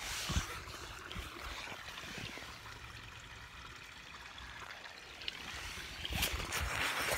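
Creek water running and trickling steadily, with a few knocks near the end.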